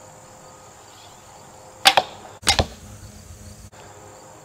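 A shot from an English longbow of Italian yew drawing about 55 pounds, loosing a 485-grain carbon arrow. The bowstring snaps sharply on release about two seconds in, and a second sharp thud follows about half a second later.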